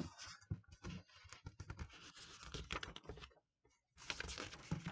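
Paper rustling and small clicks and taps as a hardcover picture book is handled, with a page turning about four seconds in.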